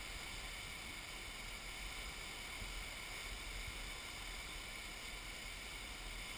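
Flash-flood water rushing steadily down a desert wash, a muddy torrent carrying logs and brush.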